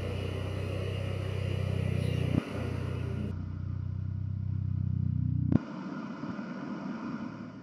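A low, steady drone of stacked deep tones with a hiss above, slowly growing louder, broken by two abrupt edits with a click about two and a half and five and a half seconds in; after the second edit it is quieter and thinner.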